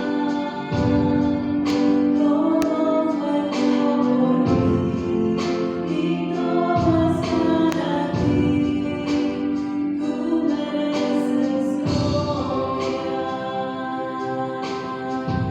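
Choir singing a slow hymn in held, sustained notes.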